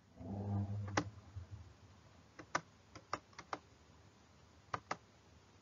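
Clicking at a computer: a brief low hum, then about nine sharp clicks of keys and mouse buttons, several in quick pairs.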